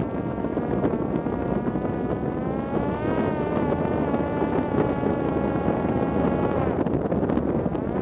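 Parrot Disco fixed-wing drone's electric pusher motor and propeller buzzing in flight, a high, even whine that wavers slightly in pitch and drops near the end, over wind rumble.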